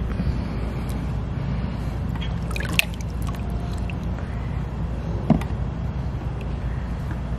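Water dripping and splashing in a shallow plastic water table as a toddler dips plastic toys and lifts them out, with a few sharp splashes or clicks against a steady low background noise.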